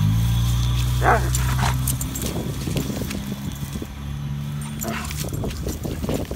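Dog giving short whimpering yips, one about a second in and a fainter one near five seconds, over a low steady hum.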